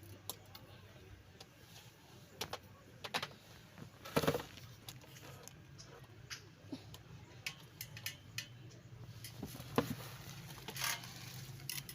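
Scattered light clicks and knocks from a garment steamer's plastic parts being handled, with a louder knock about four seconds in, over a faint steady low hum.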